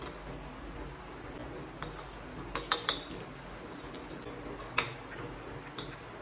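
A steel spoon clinking and scraping against the wells of a metal paniyaram pan as the paniyarams are turned over: a quick cluster of about four sharp clinks, then single clinks a couple of seconds apart, over a steady low hiss.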